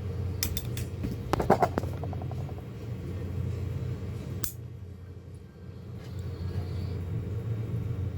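A few sharp clicks and taps, most of them bunched about a second and a half in, over a steady low hum.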